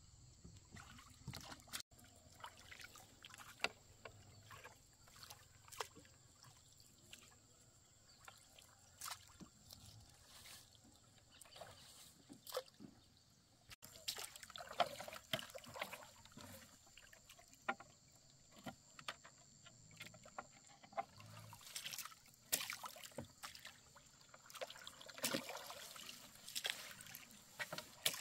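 Faint, irregular water splashes and drips with light knocks, busier in the second half.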